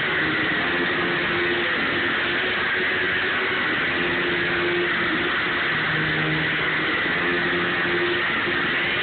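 Wrestler's entrance music over the venue PA, heavily distorted on a phone microphone, heard as a steady loud noisy wash with a few held low notes coming and going.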